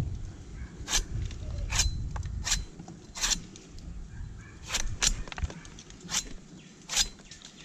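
A toddy tapper's knife chopping thin slices off the tip of a coconut flower spadix, a sharp crisp cut about every three-quarters of a second, with a short pause near the middle. The tip is freshly cut this way so that the sap keeps flowing.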